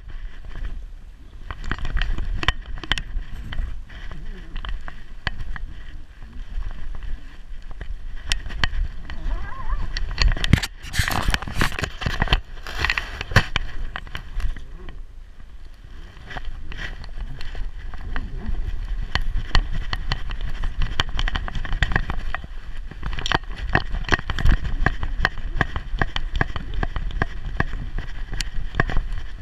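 Close-up handling noise from a GoPro strapped to a Staffordshire bull terrier's back as the dog moves about: irregular knocks, clicks and scraping of the camera mount over a steady low rumble. Around the middle there is a louder, denser burst of scraping.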